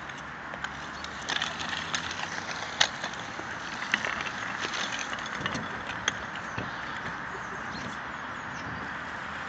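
Kick scooter's small wheels rolling over wet tarmac, with a run of sharp clicks and knocks in the first half, over steady background noise.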